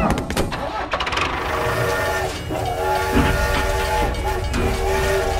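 Toy battery-powered steam locomotive running on its plastic track, its motor and wheels making a steady low rumble. From about two seconds in, its electronic train horn sounds a few held blasts, each under a second, with short gaps between.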